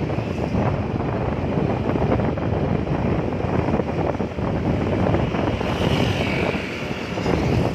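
Wind buffeting the microphone of a moving motorcycle, a steady rushing noise over the road and engine sound of the ride.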